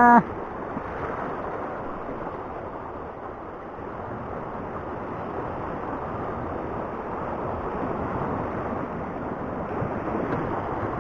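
Sea surf washing in over coral rock and through a shallow rocky channel: a steady rushing wash that swells a little louder near the end.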